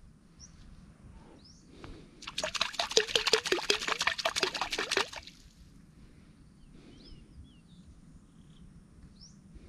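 A small hooked fish thrashing at the water's surface, a rapid run of splashes lasting about three seconds, starting about two seconds in. Faint bird chirps in the quieter stretches.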